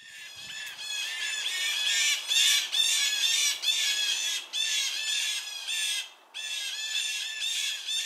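Blue jays giving harsh, rapidly repeated mobbing calls, several a second, with a short break about six seconds in: the alarm that jays raise together to harass a predator they have spotted.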